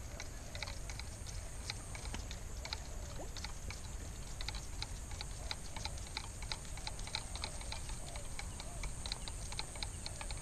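Shimano SLX baitcasting reel being cranked to retrieve line, giving a fast, uneven run of light clicks, several a second.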